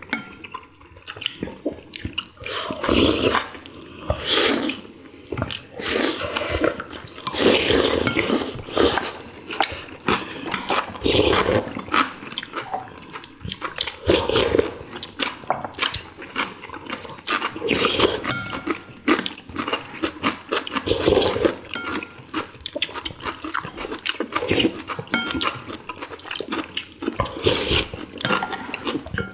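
People eating ginseng chicken soup (samgyetang): repeated loud slurps of broth and chewing. Light clicks of wooden spoons and chopsticks against ceramic bowls come in between.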